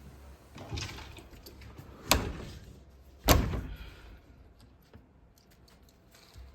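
A door being handled: a brief rattle, then two sharp bangs a little over a second apart, the second the loudest, as it is knocked or pushed shut.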